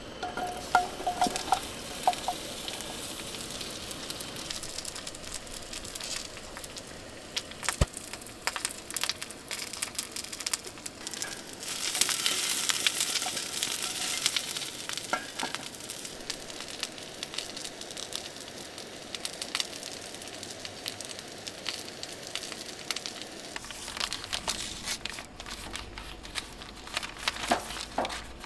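Potatoes and Brussels sprouts sizzling and crackling in hot oil in a frying pan over a gas camp stove. The sizzle starts as the vegetables hit the pan and swells for a few seconds about twelve seconds in as the pan is tossed.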